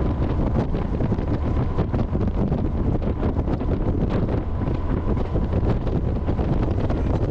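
Wind buffeting the microphone of a camera mounted on a moving freight train, over the train's steady low running rumble, with a faint steady whine.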